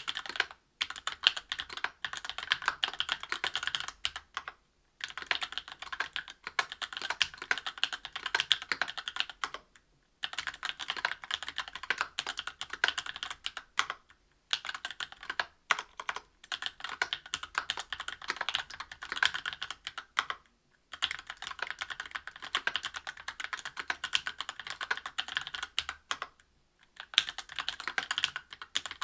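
Typing on a Special Dolphin mechanical keyboard with Krytox-lubed Tecsee Oreo 63.5 g linear switches, aluminium plate and GMK keycaps: a fast patter of keystrokes in runs of several seconds, broken by short pauses.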